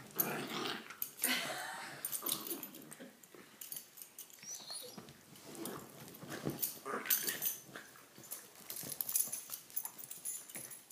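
A Rhodesian Ridgeback and a Jack Russell puppy play-fighting: short, irregular dog vocal sounds mixed with scuffling noises.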